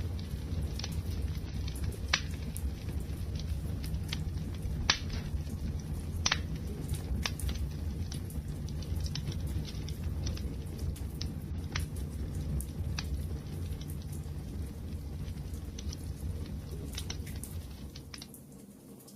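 Wood fire burning: a steady low rumble of flames with scattered sharp crackles and pops, the strongest about two, five and six seconds in. The sound dips down briefly near the end.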